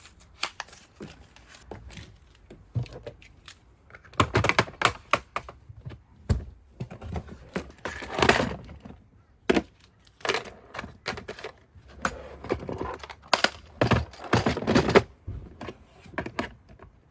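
Tools and packaging being handled: an irregular run of clicks, knocks and rustles, with louder clusters about four seconds in, near the middle and toward the end.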